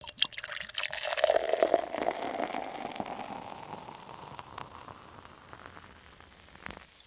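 Soda poured into a glass: sharp cracks at the start, then splashing liquid whose pitch rises as the glass fills, settling into fizzing with small pops that fades away. There is a small knock near the end.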